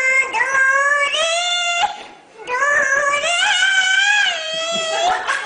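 A toddler singing in a high, thin voice: two long held phrases, the first rising in pitch near its end, a short break about two seconds in, and the second wavering up and down.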